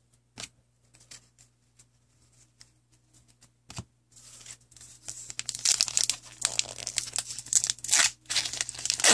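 Plastic trading-card pack wrapper crinkling and tearing as it is handled, starting about four seconds in and getting louder, after a few faint clicks of cards being handled.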